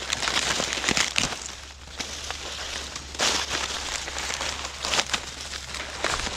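Dry corn leaves and stalks rustling and crackling in irregular bursts as someone walks through them and handles them.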